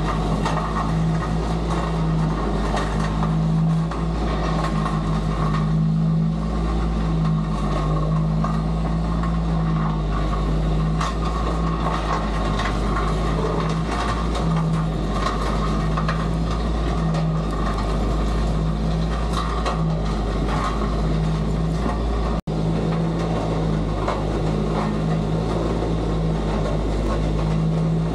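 A heavy machine's engine runs steadily with a low drone, under scattered clicks and rattles. The sound breaks off for an instant about 22 seconds in, then carries on.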